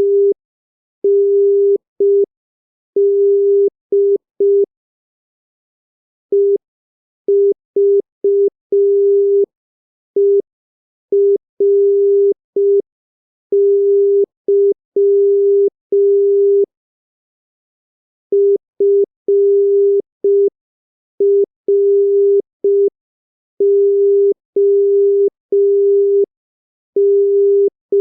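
Morse code practice tone sent at 5 words per minute: a single steady beep keyed on and off in short dits and longer dahs, with longer pauses between groups of characters.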